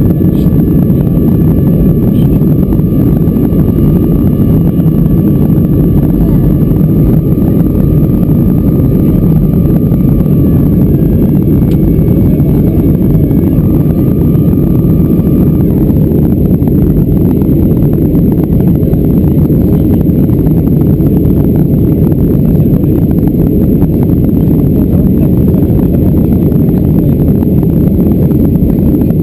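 Boeing 737-400 cabin noise in flight: a loud, steady roar from its CFM56-3 engines and the rushing airflow. A faint high whine runs under it and stops about halfway through.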